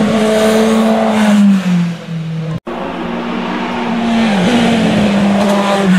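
Hillclimb racing car engines at high revs as cars drive up the hill. The pitch steps down at gear changes, and an abrupt break about two and a half seconds in is followed by another car coming up, again changing gear.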